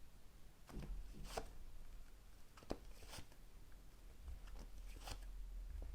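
Tarot cards being handled and laid down: a few soft taps and rustles, spread out and faint.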